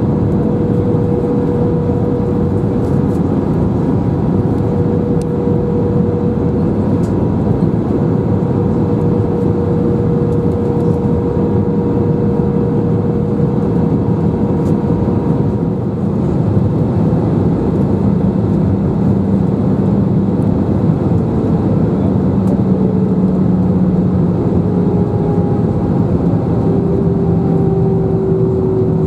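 Airbus A319 cabin noise on approach: a steady rush of airflow with the jet engines' hum. The engine tones shift in pitch a few times and sit a little lower near the end.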